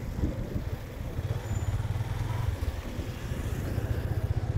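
Motorbike on the move: a steady low rumble of engine and rushing air while riding along a road.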